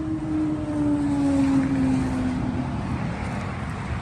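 A distant engine droning as it passes, its pitch slowly falling and fading after about two and a half seconds, over a low outdoor rumble.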